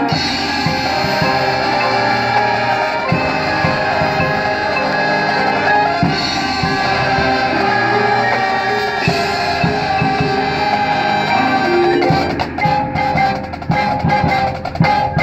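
High-school marching band playing: held brass and woodwind chords over drums and mallet percussion. From about twelve seconds in, the playing breaks into short, punctuated hits.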